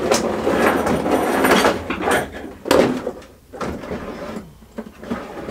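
Rummaging through a drawer of tools for pliers: metal tools clattering and sliding for about two seconds, then a few separate knocks and clicks.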